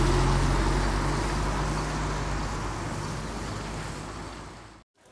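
Street traffic: a motor vehicle's engine running with a steady low hum and a hiss of road noise, fading gradually and then cutting off suddenly near the end.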